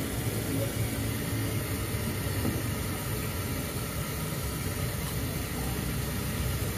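Steady low rumble of street traffic and engines, with an even hiss over it.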